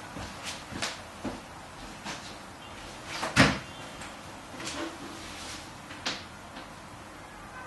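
A string of sharp, irregular knocks and clunks from something being handled in a small room, the loudest about three and a half seconds in.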